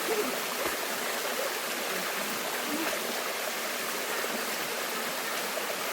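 Water rushing steadily over rocks, a continuous even hiss with no breaks.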